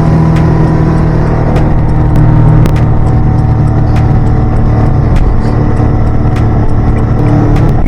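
Boat engine running loud and steady at cruising speed, a constant hum with occasional short knocks over it.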